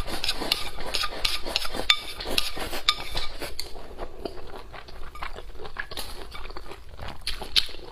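Close-miked eating sounds: crunching and chewing mixed with utensils clinking against dishes, as many quick clicks, busier in the first half.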